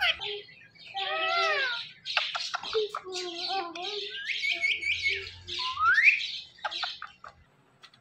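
Indian ringneck parrots calling: a busy run of squawks and chattering calls, with one rising call about six seconds in, stopping a little after seven seconds.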